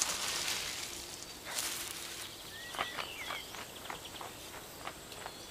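Two short bursts of rustling, then a few brief chattering bird calls and a run of quiet clicks from about the middle on, over faint outdoor ambience.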